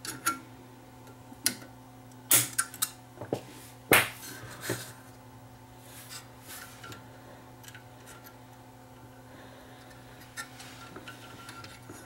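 Hand tools clicking and clinking against the metal radio chassis and wire leads while capacitors are being replaced: a quick run of sharp snaps in the first five seconds, then a few fainter ticks, over a steady low hum.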